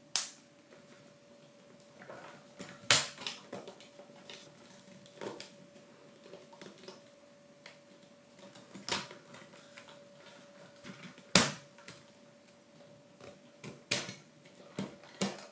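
Laser-cut plywood parts of a wooden mechanical-gear locomotive kit clicking and tapping as they are handled and pressed together: scattered sharp clicks, a few louder ones every couple of seconds with softer taps between. A faint steady hum runs underneath.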